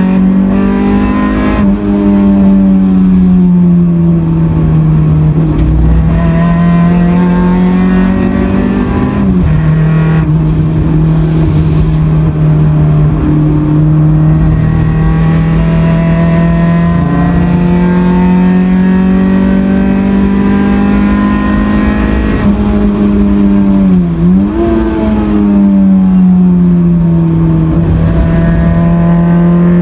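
Honda Accord CB7's four-cylinder engine running hard at high revs under track driving, heard loud from inside the cabin. Its pitch holds mostly steady, falls sharply about nine seconds in and again near the end, and dips briefly and climbs back around twenty-four seconds.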